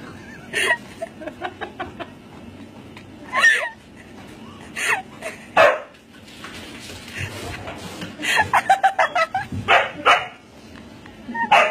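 Dog-like barking: single barks a second or two apart, then a quick run of short barks about eight seconds in, and a few more near the end.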